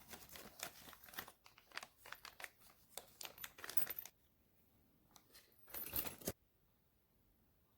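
Crinkling and tearing of packaging being handled and pulled open: a quick run of small crackles for about four seconds, then one short burst just before the six-second mark.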